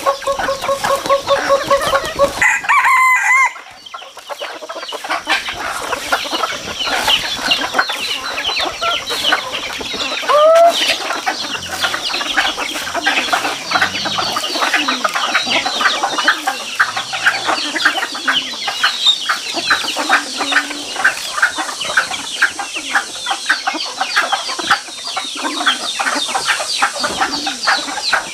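A flock of hens and roosters feeding on scattered grain: dense, rapid pecking and clucking, with a rooster crowing briefly about ten seconds in.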